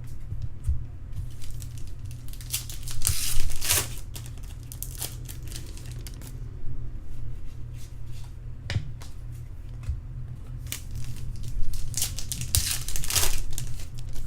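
Baseball card pack wrappers being torn open and crinkled by hand: two longer tearing rasps, a few seconds in and near the end, with small handling clicks between.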